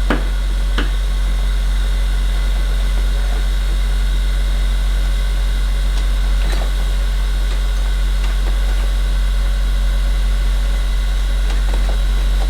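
A steady low hum with a faint hiss over it, unchanging throughout, with a few faint clicks.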